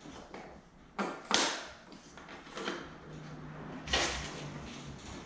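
Sharp knocks and scrapes of the front wheel being worked into place between the forks of a Kawasaki KLX125: a quick pair about a second in, a weaker one midway and another loud one near the end.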